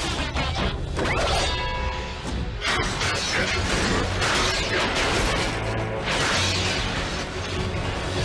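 Cartoon robot-battle sound effects: repeated metallic clanks, crashes and whooshes of robots fighting, over background music.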